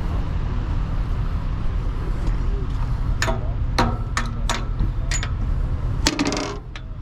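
Semi truck's diesel engine idling, a steady low rumble heard from the cab, with a few sharp clicks and ticks in the second half.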